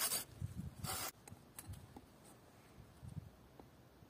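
Folding pruning saw cutting through a thin wooden branch: about three rasping strokes in the first second, then the sawing stops and only faint clicks and handling noises remain.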